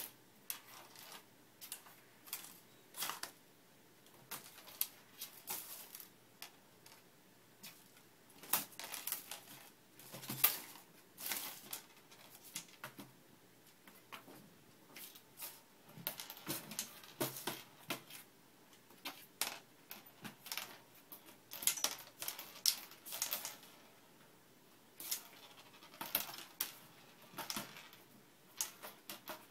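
Small loose items clicking and skittering in a desk drawer as a cat bats them around with its paw: irregular sharp taps and rattles, some in quick runs, with short pauses between.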